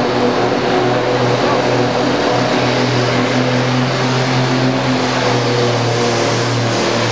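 Modified farm tractor's engine running hard under full load as it drags a pulling sled down the track. It holds a steady drone at a near-constant pitch, with a few brief dips.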